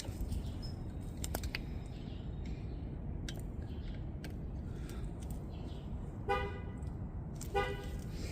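A car horn sounding two short toots about a second apart, near the end, over a steady low background hum, with a few faint metallic clicks from tools being handled.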